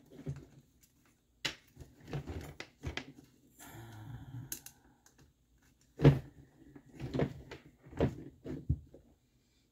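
Small screws and metal suspension parts of an RC monster truck clicking and clattering under hand as cantilevers are unscrewed, with irregular clicks and quiet gaps and one sharper knock about six seconds in.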